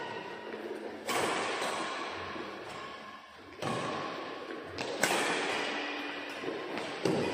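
Badminton rally: four sharp racket strikes on the shuttlecock, spaced about one and a half to two and a half seconds apart, each ringing on and fading slowly in the echoing hall.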